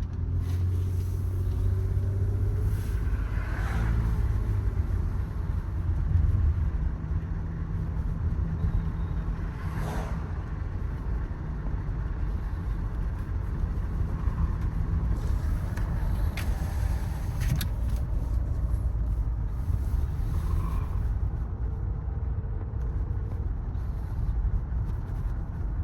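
2012 Toyota Sienna minivan running, heard from inside the cabin as a steady low rumble of engine and road noise, with a few faint clicks.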